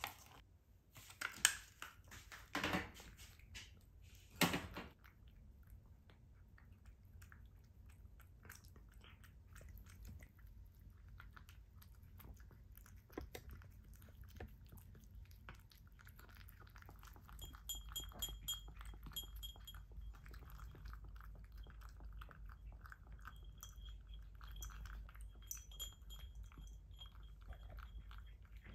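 Domestic cat eating wet food from a ceramic bowl: faint, quick chewing and lapping clicks. In the first few seconds a few louder clinks, as the food is spooned into the ceramic bowls.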